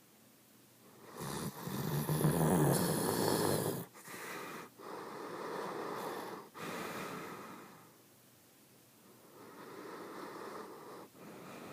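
Snoring in sleep: a strong snore from about a second in to about four seconds, a broken, weaker stretch after it, and a softer snore near the end.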